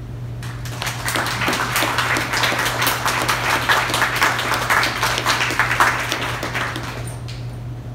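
Audience applauding, starting about half a second in and dying away near the end, over a steady low hum.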